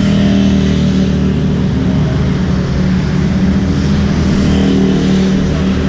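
Motorcycle engine running at low revs as the bike is ridden slowly, a steady low hum that rises and falls a little in pitch.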